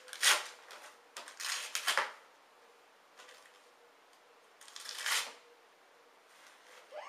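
Wrapping paper rustling and tearing as a present is unwrapped, in several short bursts: the loudest about a quarter second in, more between one and two seconds, and another around five seconds.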